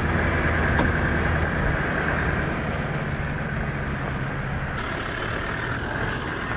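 A 4WD ute driving slowly along a sandy track, its engine running with a steady hum, heard from a camera mounted on the outside of the vehicle.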